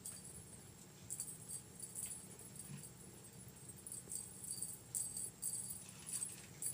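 A small jingle bell jingling in irregular shakes, starting about a second in and coming in short clusters of bright, high-pitched jingles.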